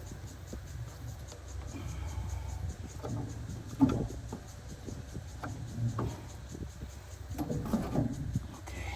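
Handling noise from someone working on the machine by hand: scattered light knocks, clicks and rubbing, with one sharper knock about four seconds in.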